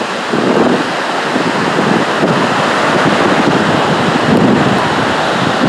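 Ocean surf washing onto a sandy beach, a steady rush, with wind buffeting the microphone in uneven low gusts.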